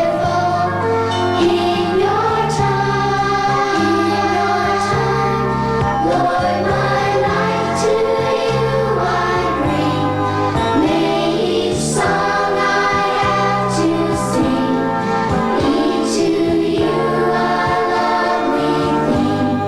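A children's choir singing a Christian praise song with instrumental backing: held chords over a bass line that changes every second or so, with light cymbal ticks.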